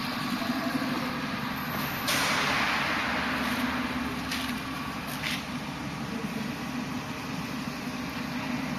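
Steady machinery hum on an air-conditioner production line's testing floor. About two seconds in, a sudden loud hiss of released air fades over a couple of seconds, followed by two brief hisses.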